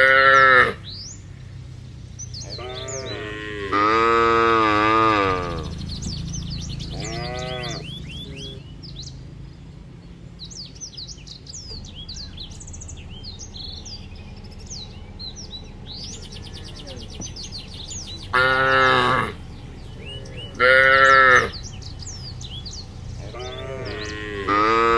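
Cattle mooing, about six separate calls with long quiet gaps between them, one of them long and drawn out; small birds chirp in the background between the calls.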